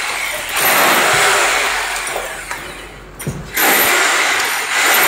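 Corded hammer drill boring a hole into a wall, running in loud bursts: it eases off just after the start, runs again for about two seconds, stops briefly about three seconds in, then starts up again.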